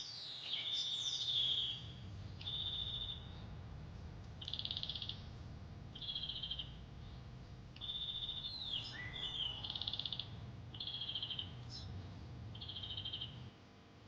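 Nature ambience of short trilling animal calls, each about half a second to a second long and repeating every second or so. A brief chirp comes partway through, over a low steady rumble.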